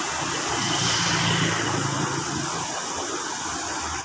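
Road traffic on a bridge: motor vehicle engines passing over a steady hiss, with an engine hum that swells in the middle and fades.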